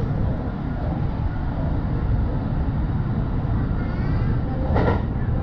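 Electric commuter train running at speed, heard from inside the front car: a steady low rumble of wheels on rail. A faint wavering whine comes in about four seconds in, and there is a brief sharper noise near the end.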